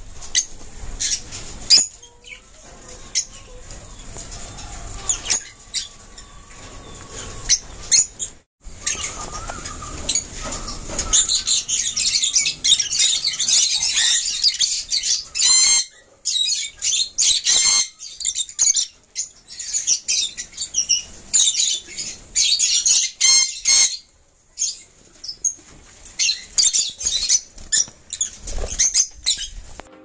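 A flock of caged African lovebirds chirping and chattering in quick, high-pitched calls, densest in long runs through the middle, with scattered short clicks and wing flutters.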